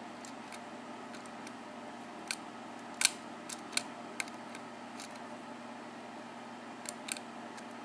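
Light metallic clicks of a lock pick working the pin stacks of a Manko 5-pin mortise cylinder under tension, scattered and irregular, with the loudest click about three seconds in and a pair of clicks near the end.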